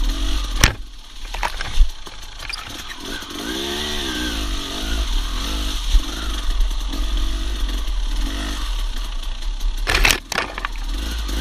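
Dirt bike engine revving up and down in several rising and falling swells at low, trail-riding speed, over a steady low rumble. Sharp knocks and slaps from brush striking the bike come through, the loudest a quick cluster about ten seconds in.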